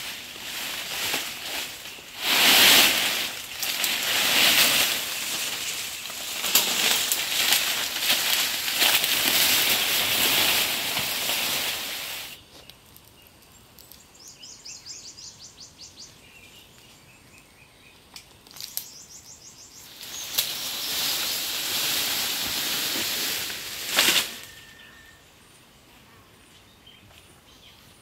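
Palm fronds and leafy undergrowth rustling loudly in repeated surges as they are pulled and handled. After about twelve seconds this gives way to quiet forest ambience with two short, fast high trills. A second burst of rustling follows, ending in a single sharp snap.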